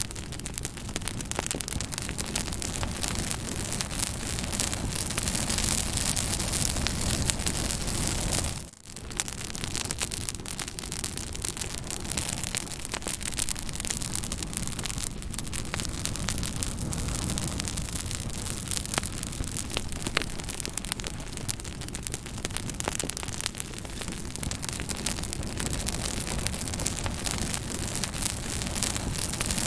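Fire crackling: a steady hiss thick with many small pops and snaps. The sound drops out for a split second about nine seconds in, then carries on as before.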